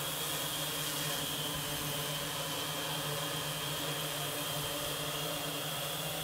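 Electric multicopter's motors and propellers humming steadily, with a thin high whine above the low hum.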